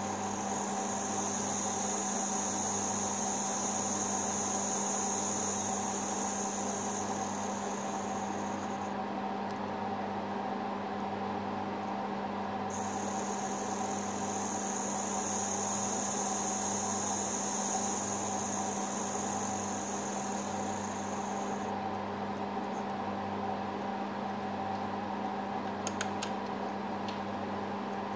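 Tiny RC car's small electric motor spinning its wheels freely, in two runs of about nine seconds each that sound as a high whirring hiss, over a steady low hum. A few faint clicks near the end.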